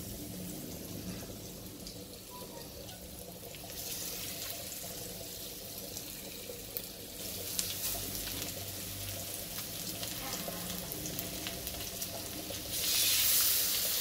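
Rava-coated surmai (kingfish) steaks sizzling as they shallow-fry in hot oil in a pan. The sizzle steps up as further pieces are laid in and is loudest near the end.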